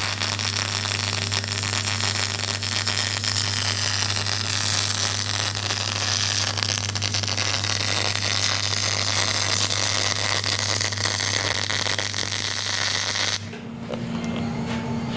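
Electric arc welding: a continuous crackling, sizzling weld run over a steady low buzz, which stops suddenly about thirteen seconds in. The weld is part of plating a repair on steel.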